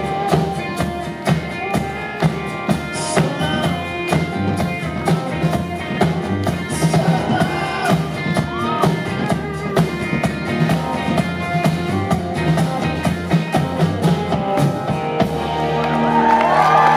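Live band playing an instrumental passage: strummed acoustic guitar, electric guitar and upright bass over a steady drum beat. Near the end the crowd starts cheering and whooping over the music.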